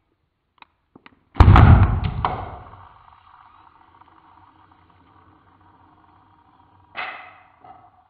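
Slowed-down replay of the cap shooting off a twisted, drained plastic water bottle. The compressed air is let go in one deep pop about a second and a half in, which fades out over a second or so. A shorter, fainter knock comes near the end.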